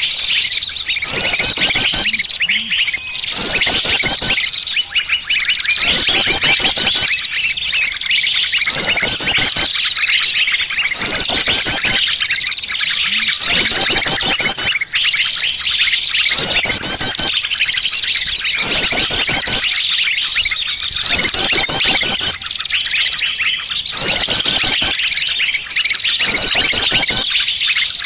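A bird-lure recording: a loud, busy jumble of many small songbirds' high chirps and trills, overlapping on purpose to sound noisy and draw curious birds in. The chirping comes in short runs that repeat about every two seconds.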